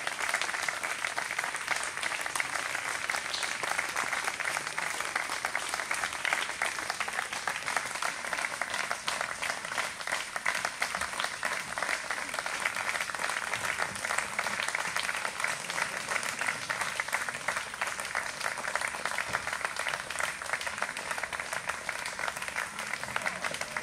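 Audience applauding: a steady round of clapping that runs unbroken.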